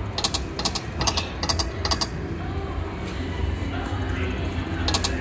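Konami Red Fortune video slot machine ticking as its reels spin and land. There is a quick run of sharp clicks in the first two seconds and another near the end, over a steady low casino hum.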